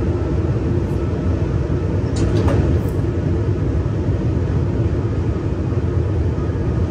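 Steady running rumble of an electric regional train, heard from inside the driver's cab, with traction off while the train brakes gently. A faint whine sits over the rumble, and a few light clicks come about two to three seconds in.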